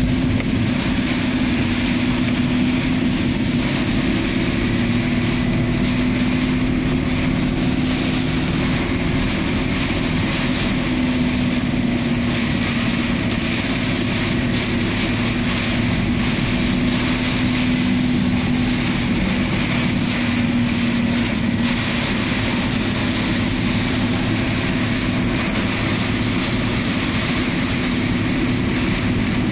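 Heavy rain beating on a car's windscreen and roof, heard from inside the cabin, over the steady hum of the car's engine and tyres on the wet road.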